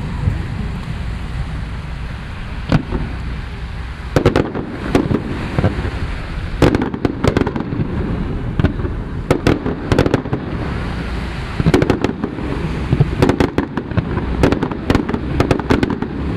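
Fireworks display: aerial shells bursting in clusters of sharp bangs and crackles, growing busier after the first few seconds, over a steady low rumble.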